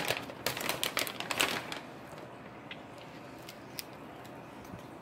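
A plastic beef jerky bag crinkling and rustling as it is handled, dense for about the first two seconds, then only a few faint ticks.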